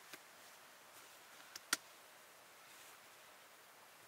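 A few short sharp clicks over a faint steady hiss, the loudest a little under two seconds in: tent poles and clips being handled while a dome tent is pitched.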